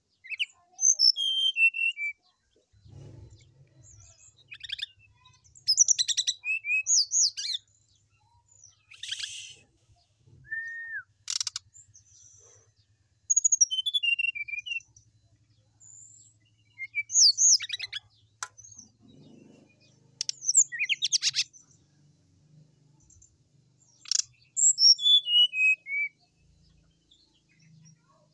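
Brown-chested jungle flycatcher singing in short bursts of high, quick, varied notes, with a gap of a second or two between bursts. Several bursts are runs of notes stepping down in pitch, mixed with sharp clicking notes.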